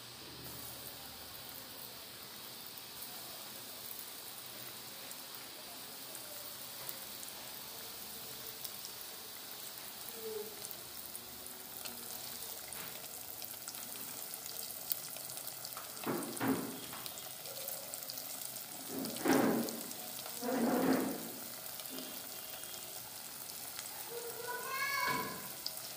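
Coated chicken pieces frying in hot oil in a kadai for their second fry: a steady sizzle with fine crackling. Three louder swells of sizzling come in the second half.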